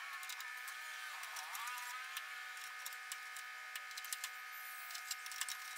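A steady whining hum that dips in pitch and recovers about a second in, with scattered light metallic clicks and taps of hands working on a steel bracket under a pickup's side.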